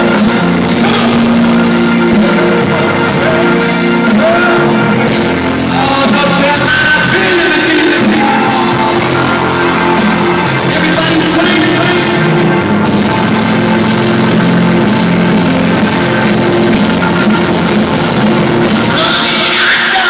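Loud live rock music with singing, played over an arena's sound system, which the crowd is singing along to.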